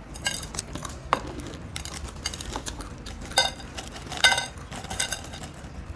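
A crunchy snack being bitten and chewed while a foil snack packet is handled and crinkled: a string of sharp crackles and clicks, loudest a little past three and four seconds in.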